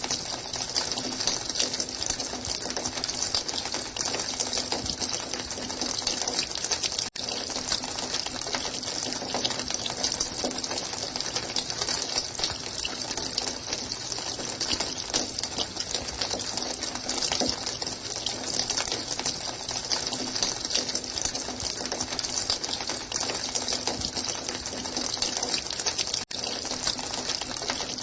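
Running water flowing in a steady, even rush with a bright hiss, broken only by two very brief dropouts, about seven seconds in and near the end.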